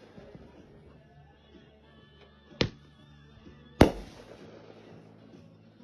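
Two firework bangs a little over a second apart, the second louder and followed by a brief ringing tail.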